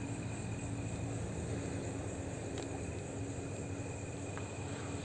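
Night insects chirping in a steady chorus, over a low steady hum that drops out now and then.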